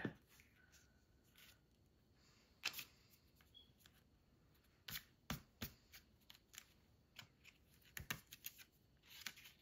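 Near silence with faint scattered taps and rustles of cardstock being folded and pressed flat by hand on a tabletop.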